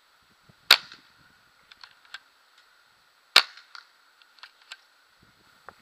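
Dukie's DSG CO2 paintball shotgun firing twice, sharp pops about two and a half seconds apart, with lighter clicks and taps between the shots.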